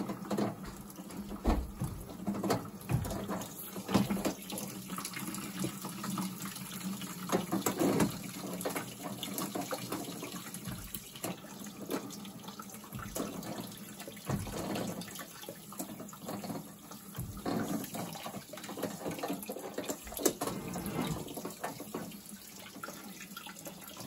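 Water running from a steam boiler's drain hose into a plastic bucket, with scattered clicks and knocks as the hose and valve are handled. The boiler is flooded and being drained down through a partly clogged drain.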